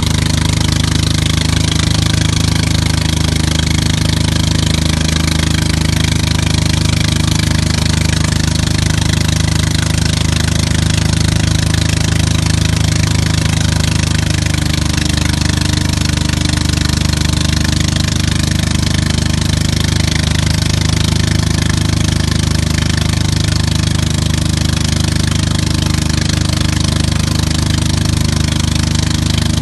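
Towing motorboat's engine running steadily at speed, with a constant rush of hiss from water and wind.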